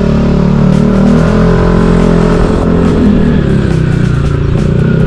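Motorcycle with an aftermarket muffler, run without its silencer insert, under way with a loud, full exhaust note. The engine pitch holds fairly steady, with small rises and falls.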